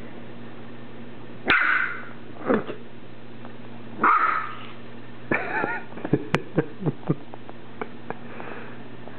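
Pembroke Welsh Corgi puppy barking in play: two sharp barks about one and a half and four seconds in, then a whiny, wavering yip and a quick run of short yaps.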